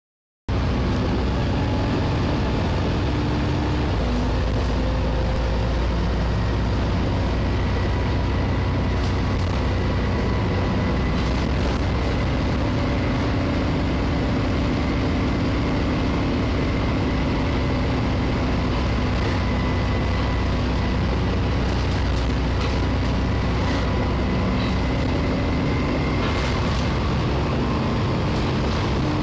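Volvo B7TL double-decker bus's diesel engine and drivetrain running under way, heard from inside the passenger saloon as a steady drone. The engine note shifts about four seconds in and again near the end.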